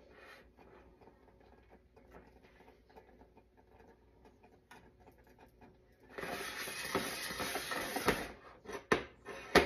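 Small stainless saucepan of boiling mixture being slid and swirled on a glass-top electric cooktop: faint ticking, then about two seconds of rasping scrape, then a few sharp knocks of the pan on the glass, the last one loudest.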